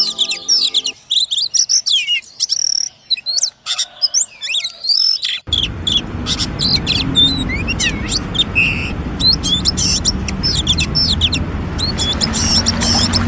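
Oriental magpie-robin (kacer) singing a fast, varied run of whistles and chirps. A steady low tone runs under the first second. About five seconds in, the recording changes and a background hum and noise come up beneath the song.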